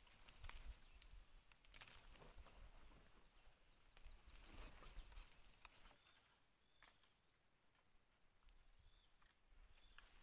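Near silence: faint outdoor ambience with scattered soft clicks and rustles, and a faint, fast, high ticking.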